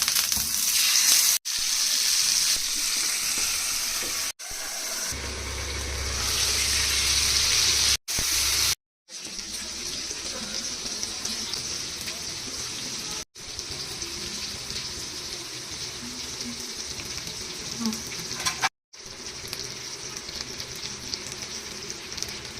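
Marinated chicken pieces sizzling in oil on a flat tawa pan, a steady hiss, heard in several short clips that cut off abruptly one after another.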